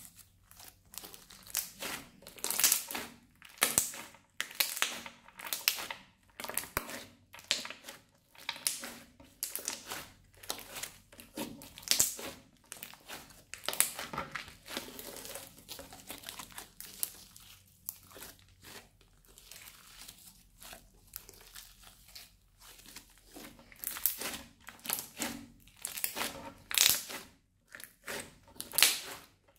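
Hands kneading and squeezing a crunchy slime studded with small beads, giving dense, irregular crackling and crunching as it is pressed and pulled.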